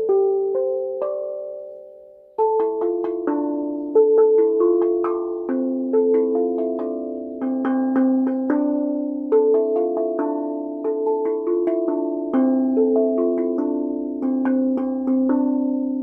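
Steel tongue drum tuned to A minor, struck with rubber-tipped mallets: a few notes ring and fade out over the first two seconds, then a quicker run of overlapping ringing notes follows.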